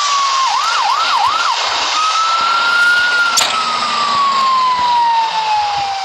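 Ambulance siren sounding over a steady hiss. It falls slowly, gives three quick yelps about a second in, then wails in long slow rises and falls.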